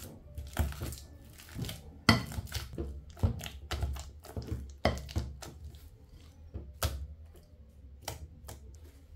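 Plastic potato masher mashing bananas in a bowl: irregular knocks and clicks as the masher head strikes the bottom of the bowl, about one or two a second, with soft squelching of the fruit in between. The knocks are loudest in the first few seconds and grow fainter and sparser as the banana turns to pulp.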